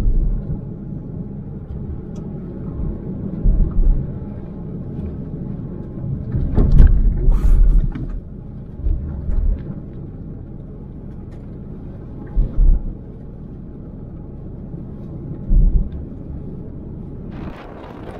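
Car interior while driving on a wet road: a steady low rumble from the engine and road, with the windshield wipers sweeping and several short low thumps, the loudest about seven seconds in. Near the end it switches to wind buffeting the microphone outdoors.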